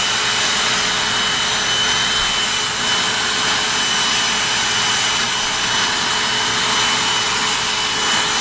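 Vacuum cleaner running steadily: an even rush of air with a high whine held at one pitch.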